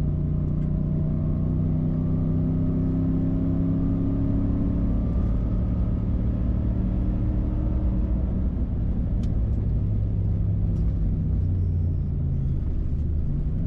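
2014 Ford SVT Raptor's 6.2-litre V8 running at a steady cruise, with a continuous low rumble of tyres and road. The engine note shifts slightly in pitch but holds fairly even.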